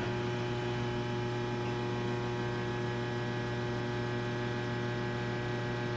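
Steady electrical hum: a low drone with a stack of higher overtones above it, holding an even level.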